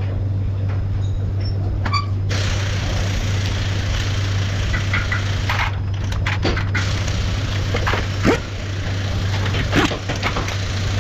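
Workshop noise: a steady low hum, joined about two seconds in by a steady hiss-like noise, with scattered short metal clinks and knocks.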